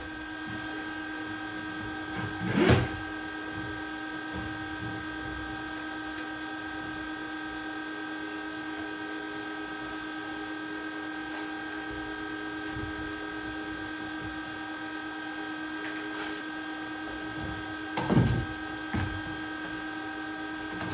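A steady machine hum with several fixed tones runs under everything. Two loud knocks, wood or metal handling, come about three seconds in and again near the end, with a few lighter knocks around them.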